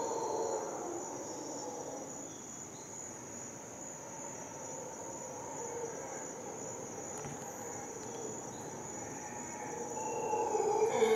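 Howler monkeys howling: the low roaring fades after the first second and swells again near the end, over a steady high drone of insects.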